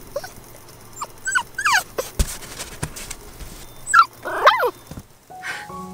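American pit bull terrier puppy whimpering and yipping in short high cries that slide down in pitch. The cries come singly at first, then several in quick succession, with a soft bump or two in between.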